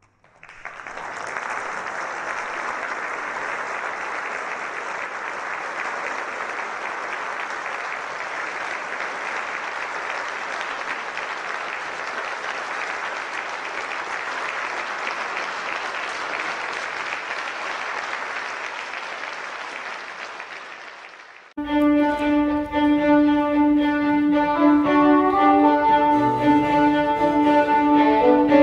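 Audience applauding steadily for about twenty seconds, fading out. Then an abrupt cut to a chamber ensemble of violin, viola, cello and oboe playing long held notes.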